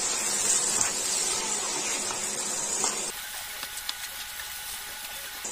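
Diced potatoes and sliced onions sizzling as they fry in hot oil in a non-stick pan, stirred with a wooden spatula. The sizzle drops suddenly to a softer level about three seconds in.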